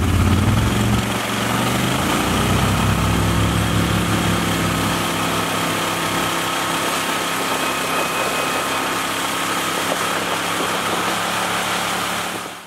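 Tiller-steered outboard boat motor running with the boat underway. The engine note changes about a second in, then holds steady before fading out at the very end.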